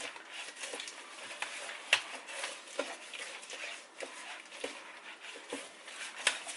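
Light kitchen handling noises: scattered clicks and taps of containers and utensils being moved, the clearest about two seconds in and near the end.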